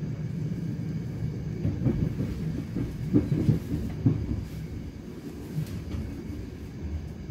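Running noise inside the passenger compartment of an ÖBB class 4020 electric multiple unit on the move: a steady low rumble with irregular knocks from the wheels on the track, the knocks thickest in the first half and the rumble easing slightly after about five seconds.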